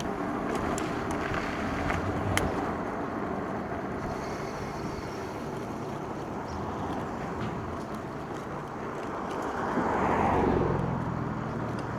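Steady road and wind noise from riding an e-bike on city streets, with a few sharp clicks in the first two seconds. About ten seconds in, a passing vehicle swells and fades.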